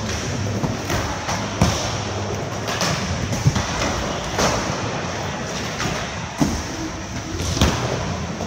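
Inline skate wheels rolling on a wooden vert halfpipe, with a sharp thud each time the skater lands back into the ramp from an air, several times, in a large hall.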